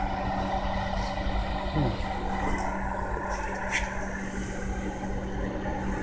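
1994 GE Spacemaker JVM230B microwave oven running with its cover off: the high-voltage transformer hums steadily while the magnetron runs, drawing about 12 amps, a sign the oven is heating.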